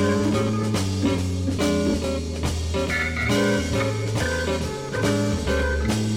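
Instrumental soul-jazz from an organ trio: organ, guitar and drums in a bluesy groove over a bass line that steps from note to note.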